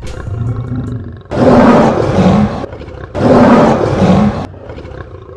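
A lion roaring twice. Each roar is loud and rumbling and lasts about a second and a half; the first comes a little over a second in and the second about three seconds in.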